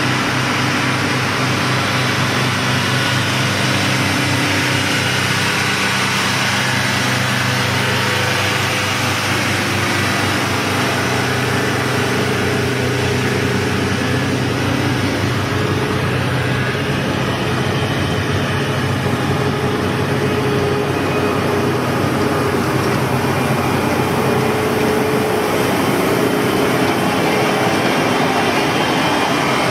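Engine of heavy road-construction machinery running steadily at a constant speed, with a steady higher tone that comes in about halfway through.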